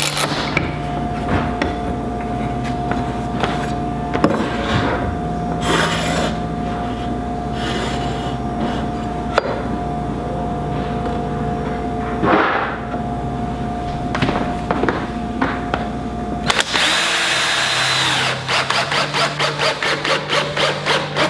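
A cordless drill driving a screw into a 2x4 stud frame. It whines up about two-thirds of the way in and runs in a fast stuttering series near the end, over background music. Before it come scattered knocks of a bar clamp and a square being worked against the wood.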